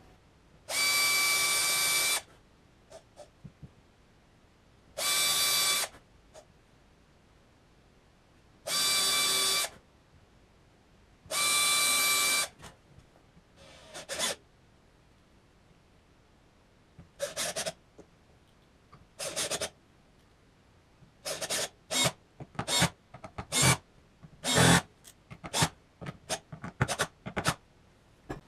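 A small power tool's motor runs in four separate bursts of about a second and a half each, with a steady high whine. Then comes a series of short, irregular, noisy sounds that grows busier toward the end.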